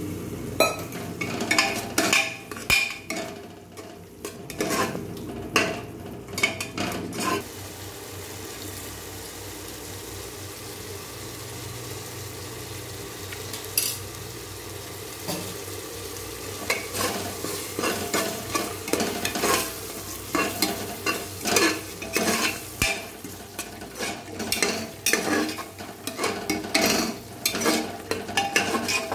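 Steel ladle scraping and clinking against the inside of a pressure cooker as masala is stirred, over the sizzle of the masala frying. The stirring stops for several seconds around the middle, leaving only the sizzle, then starts again.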